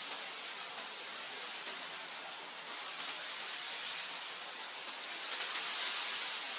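Wind blowing across a grassland, a steady hiss that swells a little near the end.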